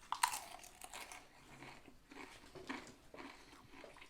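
A bite into a sub sandwich with a sharp crunch just after the start, followed by irregular crackly chewing.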